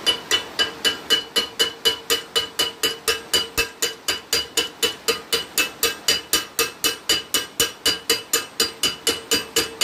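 Welder's chipping hammer striking a fresh 7018 stick weld on steel to knock the slag off, about four quick strikes a second, each with a short metallic ring from the steel.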